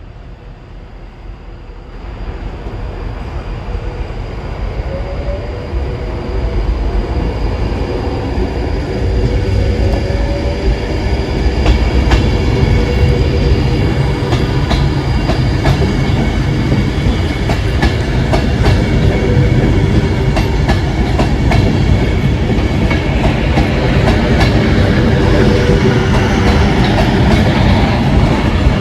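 Train coming into the station, growing louder over the first ten seconds or so, then running past with a steady rumble and rapid clickety-clack of wheels over rail joints.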